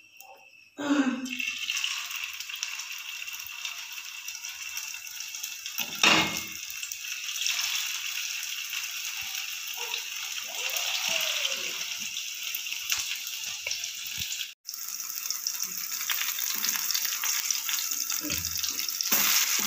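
Chicken tikki kebab patties sizzling as they shallow-fry in hot oil in a nonstick frying pan. The sizzle starts suddenly about a second in as the patties go into the oil, with one thump about six seconds in.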